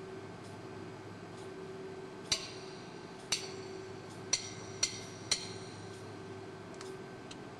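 Five sharp clinking taps, each with a brief high ring, the first three about a second apart and the last two half a second apart, over a steady low hum.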